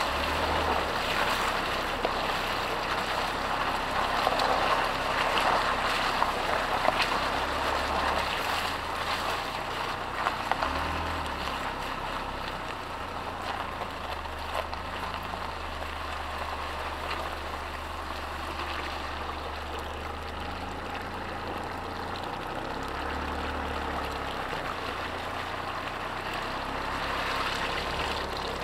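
Mitsubishi Pajero's 3.2 diesel engine running at low speed off-road, heard from a camera mounted beside the front wheel, with the tyre crunching over gravel and small stones ticking, plus wind noise. The tyre noise and ticks are louder in the first ten seconds or so, then settle to a steadier, quieter rumble.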